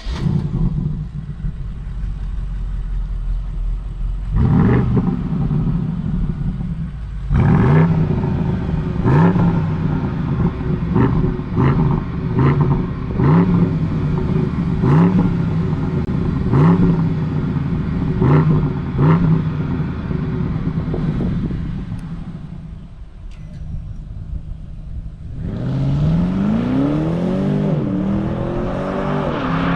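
BMW 750i xDrive's twin-turbocharged V8 starting and idling, with one rev about four seconds in. A run of about a dozen short throttle blips follows, roughly one a second. It settles back to idle, then near the end the revs climb, drop once and climb again.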